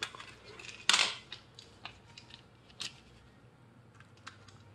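Hard plastic clicks and knocks from a toy train wagon being fitted onto a Thomas the Tank Engine toy and its plastic track: one loud click about a second in, a sharper tick near three seconds, and several faint ticks between.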